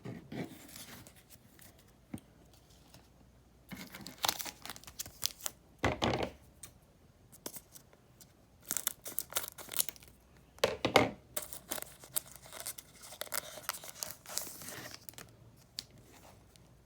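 A foil trading-card pack wrapper being torn open and crinkled in several spells of rustling, with a couple of soft knocks as cards are handled.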